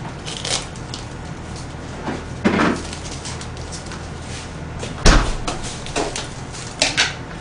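Plastic wrap crinkling and tearing as it is pulled off a takeout food container, with a sharp thump about five seconds in.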